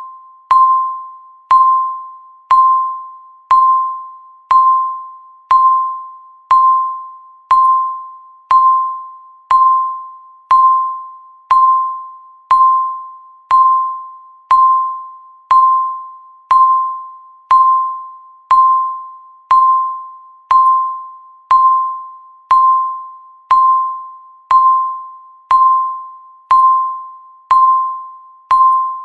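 Countdown timer beeping once a second: a single electronic tone struck with a sharp click, ringing out and fading before the next beep, even and regular throughout.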